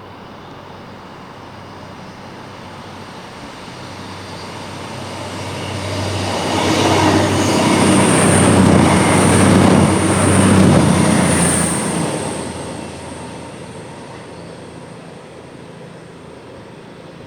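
Class 56 diesel locomotive 56078 passing with a freight train, its Ruston-Paxman V16 diesel engine running. The engine sound swells to a peak around the middle and then fades away, with some high-pitched wheel squeal at the loudest point.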